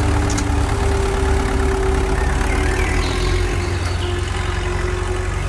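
An engine idling steadily: an even low rumble with a faint steady hum above it.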